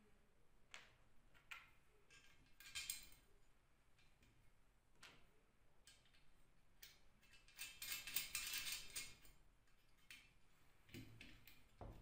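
Faint scattered clicks and light metallic rattling from hands handling a painted metal motor-mounting bracket and electric motor, with a longer stretch of busy rattling and scraping about two-thirds of the way through.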